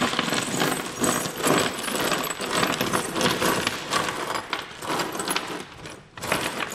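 Loose metal bolts, screws and washers clinking and rattling as they are tipped from a plastic bag onto a plywood bench and raked through by hand, with a short lull near the end.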